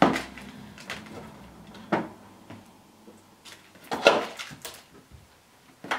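Hard plastic knocks and light clatter as a Silhouette Cameo 3 cutting plotter and its power adapter and cable are handled and the machine is turned on the table. There are about five separate knocks, the loudest cluster about four seconds in.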